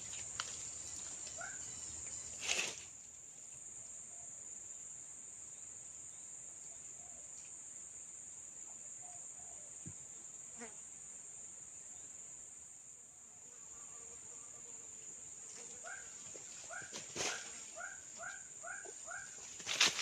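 Insects chirring steadily in a high, even drone over a swamp, with one sharp knock a few seconds in. Near the end a run of about eight short chirps repeats at roughly two a second.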